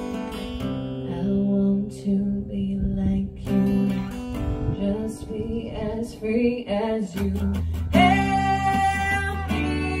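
Fender acoustic guitar strummed under a violin melody, an instrumental passage with gliding bowed notes. The music grows louder and fuller about eight seconds in.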